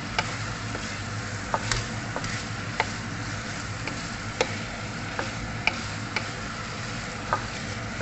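Chicken curry frying in a pan in its separated oil: a steady sizzle with about ten sharp clicks scattered at irregular intervals.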